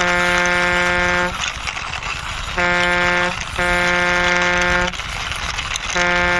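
Truck horn honking in a repeating pattern of a short honk followed by a longer one, the pair coming round about every three and a half seconds, over a steady noisy background.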